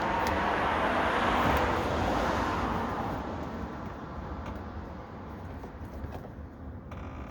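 A vehicle passing by: a rush of road noise that swells over the first two seconds and fades away by about four seconds in, over a steady low rumble.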